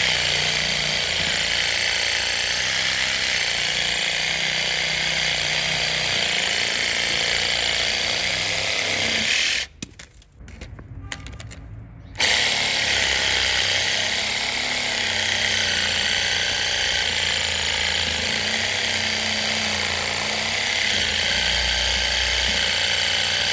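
Parkside PAAS 12 A1 12 V cordless reciprocating garden saw running, its blade sawing through a branch about 5 to 6 cm thick. About ten seconds in it stops for roughly two seconds, then runs again.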